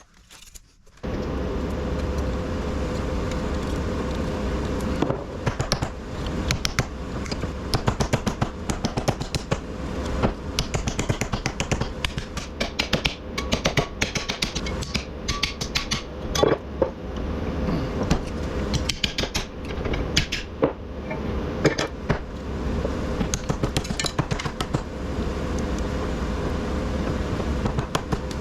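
A machine starts running about a second in and keeps a steady hum, with many quick metallic clicks and clanks over it as copper windings are worked out of small electric motor stators.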